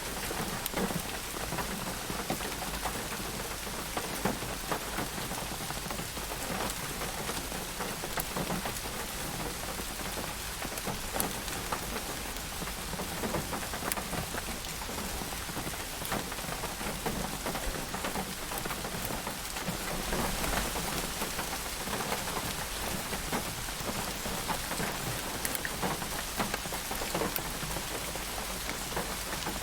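Steady rainfall with many individual drops pattering on a hard surface, an even hiss with scattered sharper drop ticks throughout.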